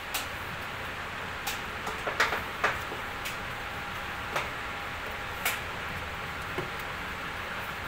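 Paintbrush dabbing and scraping a white coating onto a fibreglass cooler mould: irregular sharp ticks and clicks, the loudest a couple of seconds in, over a steady background hiss.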